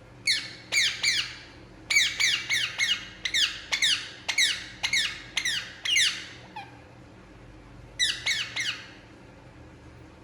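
Indian ringneck parakeet giving short, shrill calls that each slide down in pitch, in quick series: about three, then a run of around a dozen, then three more near the end.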